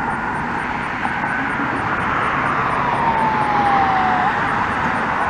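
Fire engine's siren wailing faintly over steady traffic noise, its pitch falling slowly and then jumping back up, as the truck drives off.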